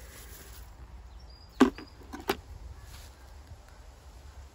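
Two sharp knocks about two-thirds of a second apart, the first much louder than the second, over a faint steady outdoor background.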